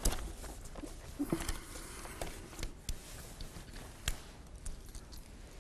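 Handling noise at a lectern: a few scattered light clicks and knocks with faint rustling of clothing as a man reaches into his jacket.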